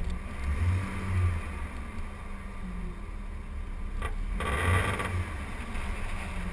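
Jeep driving on the road, heard from a camera mounted outside on the body: a steady low engine and road rumble with wind on the microphone. About four and a half seconds in there is a brief louder burst of rushing wind noise.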